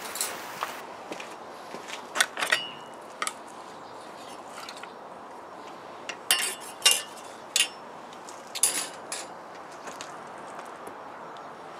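Metal grill tongs clinking and knocking against grill grates and a cutting board: scattered clinks in small clusters, one with a brief ringing tone.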